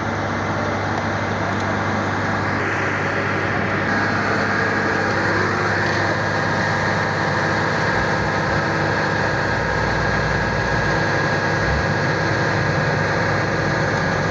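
Road roller's diesel engine running steadily at a constant speed, with a steady high whine above the low engine sound.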